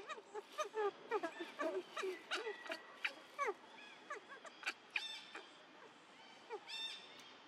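Many short chirping animal calls, several a second, thinning out after the first few seconds, with two buzzier calls near the end.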